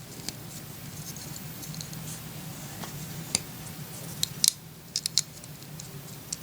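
LEGO tiles being handled and pressed onto a plate: a few sharp little plastic clicks, scattered, with a pair close together about five seconds in, over a faint steady hum.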